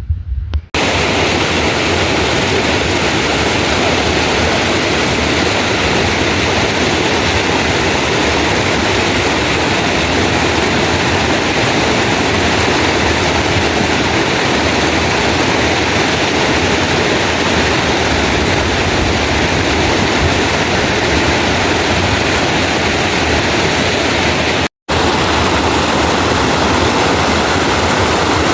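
Loud, steady rush of fast-flowing river water, an even roar with no rhythm. It cuts out for a split second about 25 seconds in.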